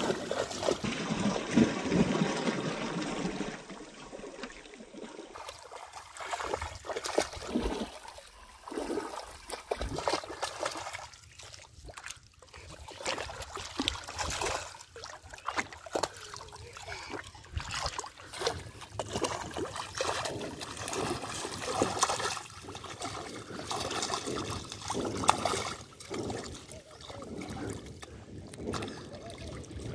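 Shallow muddy water splashing and sloshing irregularly as a child wades through it and gropes for fish by hand, loudest in the first few seconds.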